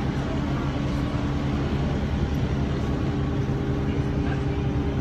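Engine noise heard inside a moving city bus: a steady drone with several held low tones.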